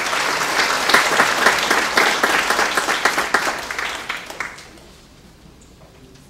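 Audience applauding, many hands clapping together, dying away about four and a half seconds in.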